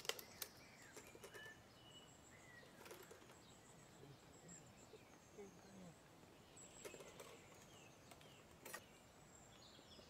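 Near silence: faint outdoor ambience with scattered short bird chirps and a few faint clicks.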